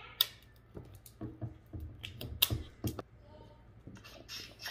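Close-miked eating of a crab seafood boil: a run of about a dozen sharp, irregular cracks and smacks as crab shell is broken open and eaten, with a short hiss near the end.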